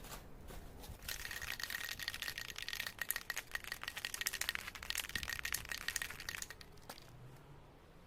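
Dense, rapid rattling clicks that start about a second in and stop shortly before the end.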